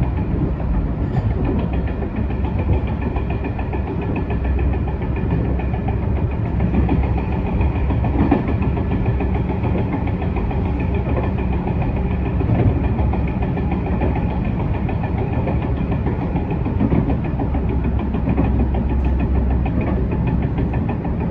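Diesel railcar's engine running steadily, with train running noise and a few light clicks, heard from inside the rear of the car.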